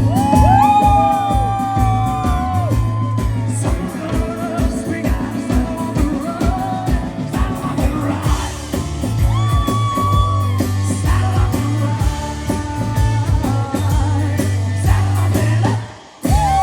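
A live band playing a country-rock song: long held melody notes over a steady drum beat and bass. The music drops out for a moment near the end, then comes back.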